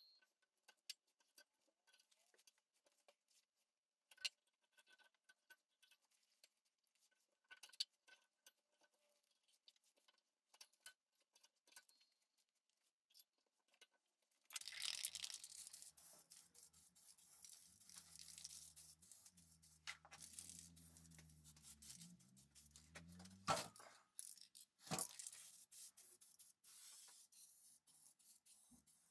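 Masking tape pulled from the roll and torn, with small clicks and scrapes as it is pressed onto the steel bars of a grill grate. About halfway through, an aerosol spray-paint can starts hissing in bursts as the frame is sprayed black, with a low hum underneath for a few seconds.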